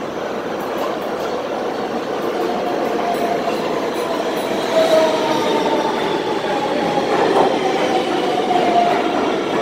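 R160B Siemens subway train pulling into the station, growing louder as it comes in. Its electric propulsion whine slides down in pitch as the train slows, over the rumble of wheels on the rails.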